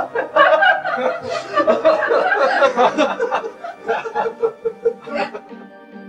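Several people laughing and chuckling together, loudest in the first few seconds. Music comes in near the end.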